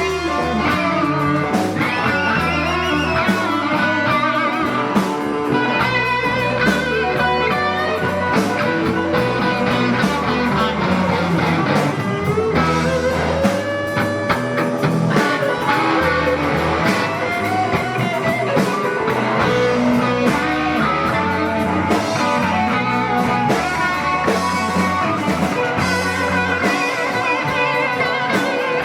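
Live blues-rock band playing an instrumental passage: an electric guitar solo with bent, sliding notes over bass and drums.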